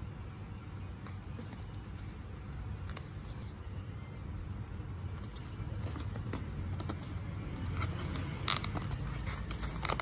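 Handling noise of a Zippo lighter's plastic display box: scattered scrapes and clicks as the lighter is worked out of its case, growing busier over the last few seconds with the sharpest clicks near the end. A steady low rumble sits underneath.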